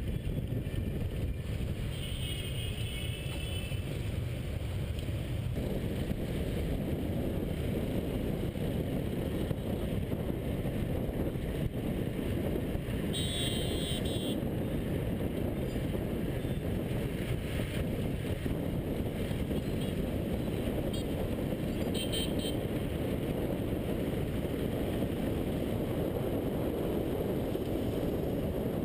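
Motorbike riding through dense city traffic: a steady low rumble of engine, road and wind noise on the helmet-mounted microphone. Vehicle horns beep a couple of seconds in, again for about a second near the middle, and in a few short toots later on.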